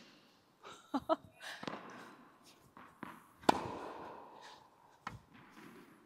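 Tennis ball being struck by a racket and bouncing on a hard indoor court: a handful of sharp pops. The loudest, a racket hit about three and a half seconds in, rings on in the hall's echo.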